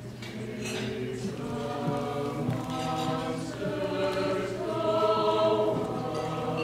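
Mixed choir of men's and women's voices singing held chords, swelling louder about five seconds in.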